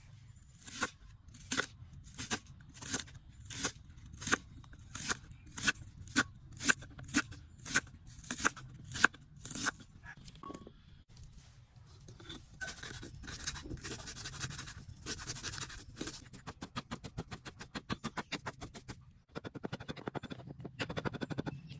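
Taro stalks being cut with a blade: sharp strokes about two a second for roughly ten seconds, then a faster, rapid run of cuts.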